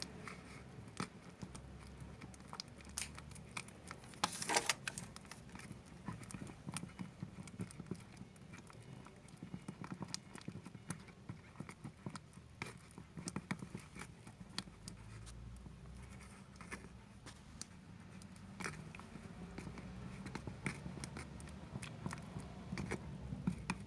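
A stirrer clicking and tapping irregularly against the sides of a container as it mixes thinned white PVA glue with gold glitter, with one louder scrape about four and a half seconds in.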